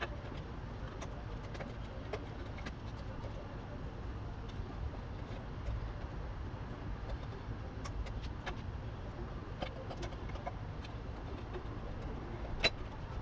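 Scattered small metallic clicks and clinks of hand tools and parts being handled, with one sharper click near the end, over a steady low background rumble.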